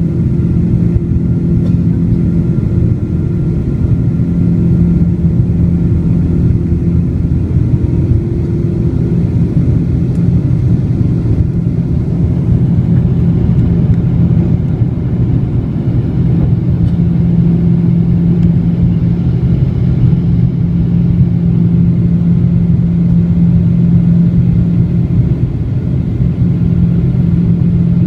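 Twin turbofan engines of a Boeing 777-200 running with a loud, steady low rumble and a few held tones; the higher of those tones fades out about nine seconds in.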